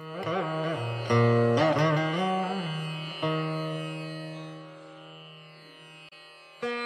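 Music: a plucked string instrument playing a slow melody in a South Asian classical style, its notes wavering and bending in pitch. A long low note then slowly fades, and new plucked notes start near the end.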